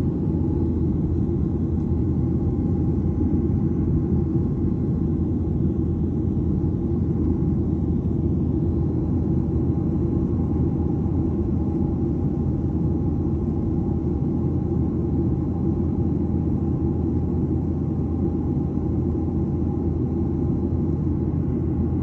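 Airliner cabin noise in flight: a steady, deep rush of engines and airflow, with a faint steady hum above it.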